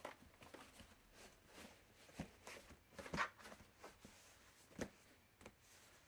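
A laundry basket with clothes in it being handled: a string of faint, irregular rustles and light knocks. The loudest comes a little after three seconds in, and another near five seconds.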